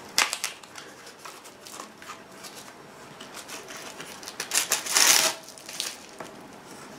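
Eyeshadow palette packaging being handled and unwrapped: scattered clicks and rustles, with a louder rustle around five seconds in.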